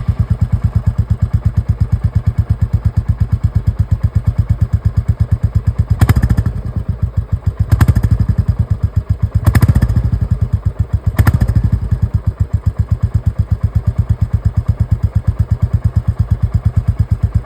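2024 Royal Enfield Bullet 350 single-cylinder engine idling just after starting, its exhaust giving an even thump. The throttle is blipped four times near the middle, each blip a short rise in revs.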